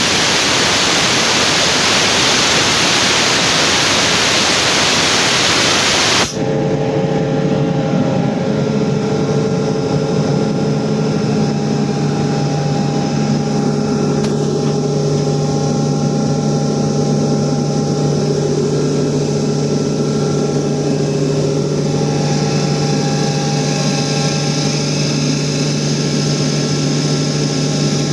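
A loud, steady rushing hiss that cuts off suddenly about six seconds in, after which a 7.5 hp air compressor runs with a steady hum.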